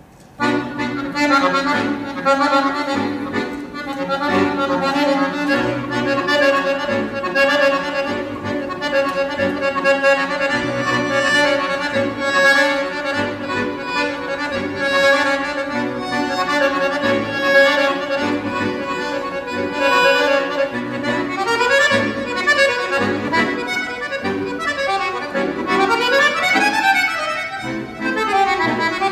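Solo chromatic-bass (free-bass) accordion. After a quiet stretch it comes in loud about half a second in, with sustained chords over a bass that pulses about once a second. From about 21 seconds in it plays fast runs that sweep up and down.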